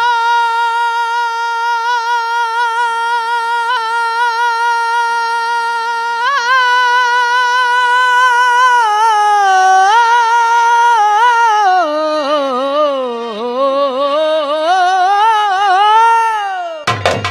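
A woman singing in nautanki style, with no drum behind her: first one long held note with vibrato, then, from about halfway, a wavering run of falling and rising notes. The tabla comes back in just at the end.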